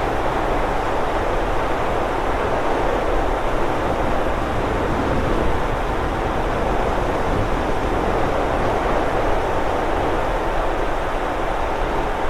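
A steady, loud rushing noise with no tone, beat or break, heaviest in the middle and low range.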